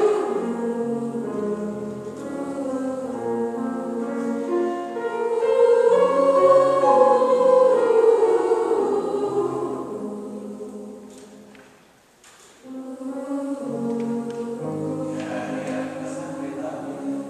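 Girls' choir singing sustained chords, swelling to its loudest about six to eight seconds in, fading away to a brief pause about twelve seconds in, then coming back in.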